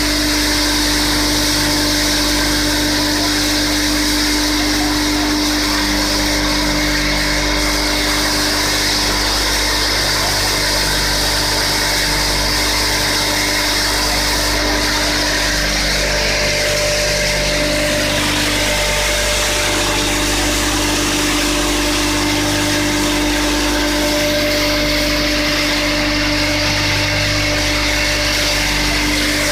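JLMF-V800 wood sawdust machine running steadily: a loud, constant mechanical hum with a steady whine. The whine dips briefly in pitch a little past halfway, then settles back.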